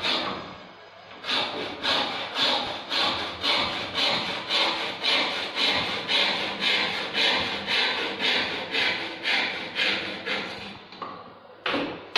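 Hand frame saw cutting through a wooden plank: a steady rasp of back-and-forth strokes, about two a second, that starts after a brief pause and stops near the end, followed by a single knock.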